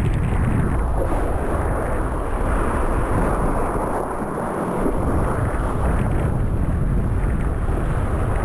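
Wind buffeting a chest-mounted GoPro's microphone while kitesurfing at speed, mixed with water rushing and slapping under the board. The low rumble thins out briefly about four seconds in.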